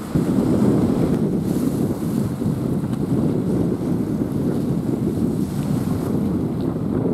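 Wind buffeting the microphone, a loud, steady low rumble.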